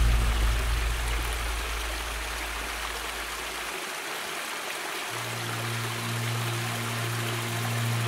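A small waterfall spilling over rocks into a mountain stream, a steady rush of water. Soft background music with low held notes runs beneath it, dropping out about four seconds in and coming back a second later.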